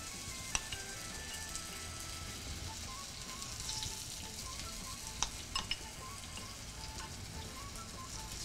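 Tofu cubes coated in chickpea flour sizzling as they fry in hot oil in a nonstick frying pan. A few sharp clicks of a spoon against the pan come about half a second in and again around five seconds in.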